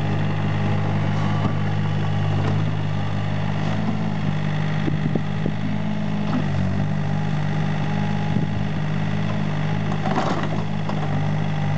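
Mini excavator's diesel engine running steadily as it digs, with a few short knocks from the working arm and bucket and a brief noisy rush about ten seconds in.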